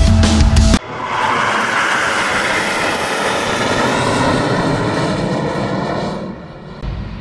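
Jet fighters passing in a flyover, most likely the Patrouille Suisse's F-5E Tiger II jets: a loud, steady rush of jet noise that rises about a second in and fades after about five seconds. Heavy rock music plays briefly at the start before cutting off.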